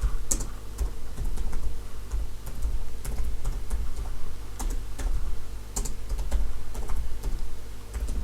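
Typing on a keyboard: irregular runs of sharp key clicks, close to the microphone, over a low handling rumble.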